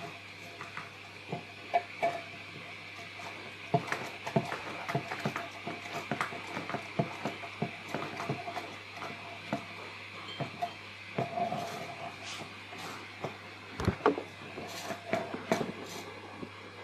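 Irregular clicks, creaks and small knocks from a 3D-printed plastic rubber band car being handled and readied for another run.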